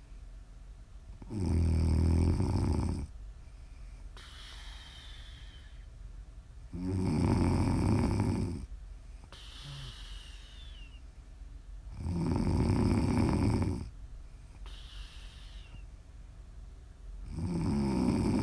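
A sleeping woman snoring: four loud, rough snores on the in-breath, about every five seconds. Softer out-breaths between them carry a faint falling whistle.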